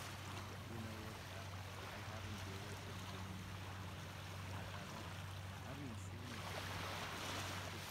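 Small waves lapping and washing gently up a sandy shore, rising and falling softly, over a steady low hum.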